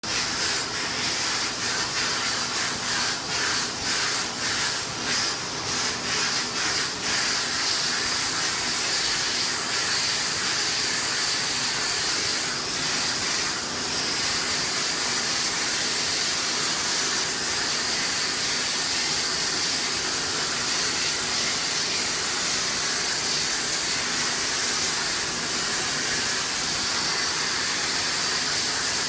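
Steam cleaner's brush-head wand hissing as it jets steam onto travertine shower tile. The hiss pulses rapidly for the first seven seconds or so, then runs steady.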